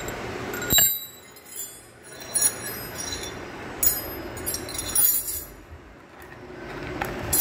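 Metallic clinks and light jingling with several sharper knocks about a second apart, over a low rumbling handling noise, as hands work around a motor trike's chrome shocks and exhaust.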